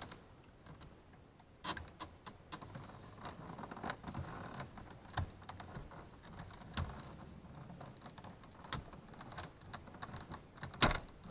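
Small plastic clicks and rustling from handling a car door's power mirror switch panel and releasing the clips of its wiring plug, with one sharper click near the end.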